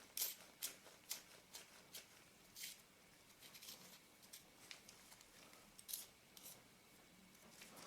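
Faint, irregular small metal clicks and scrapes as the brass retaining ring of a 1942 Schneider-Göttingen loupe is fitted and turned onto its thread. The clicks come thickest in the first two seconds, then sparser.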